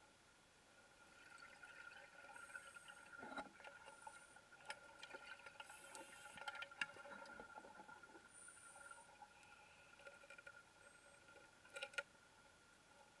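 Faint underwater sound on a wreck dive: a steady high-pitched hum, with scattered soft clicks and crackles that pick up about a second in and fade out after ten seconds.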